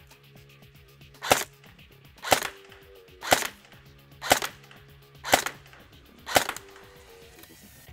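Elite Force H&K MP5 SD5 airsoft electric gun (AEG) with a full metal gearbox firing six single shots, about one a second, each a sharp crack with a short tail.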